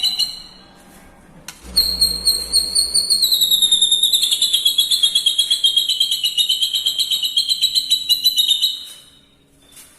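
White-rumped shama (murai batu) singing one long, high, rapid trill of quick even notes. It starts about a second and a half in, dips slightly in pitch partway, and stops shortly before the end.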